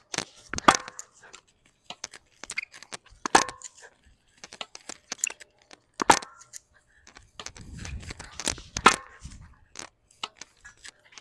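Tennis balls struck by rackets in a forehand drill on a hard court: a sharp pop about every three seconds, with fainter taps in between.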